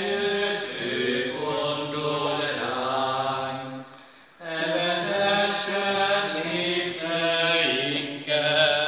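Church congregation singing a hymn together in unison, in long phrases with a short breath pause about four seconds in.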